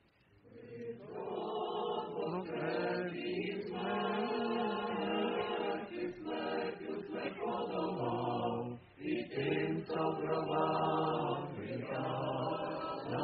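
A choir chanting: sustained sung phrases that begin about half a second in and pause briefly once, about nine seconds in.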